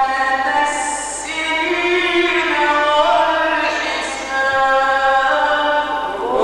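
A solo male Quran reciter chanting in the melodic tajweed (mujawwad) style, drawing out long ornamented notes that bend slowly in pitch, with a short hissing consonant about a second in.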